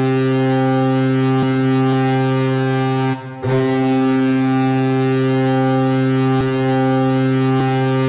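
Colorado Avalanche arena goal horn of the 2016-17 season sounding a long, low, steady blast. It breaks off for a moment about three seconds in, then sounds again.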